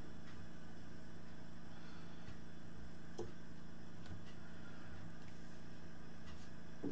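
Chicken drumsticks being dredged and pressed in a ceramic bowl of flour: two faint soft knocks, about three seconds in and at the very end, over a steady low hum.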